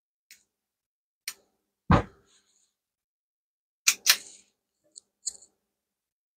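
Metal cookie scoop clicking and knocking against a stainless steel mixing bowl while dough is scooped out. There is one dull, heavy thump about two seconds in, a pair of sharp knocks about four seconds in, and a few lighter clicks before and after.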